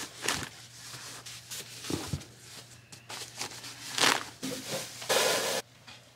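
Rustles and soft knocks of disposable diapers being handled and stacked into a drawer. About five seconds in there is a short, louder rush of noise that cuts off sharply.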